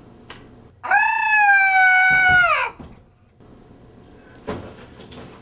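A person screaming in horror: one shrill, high scream held for about two seconds, then dropping in pitch as it dies away. A short knock follows about four and a half seconds in.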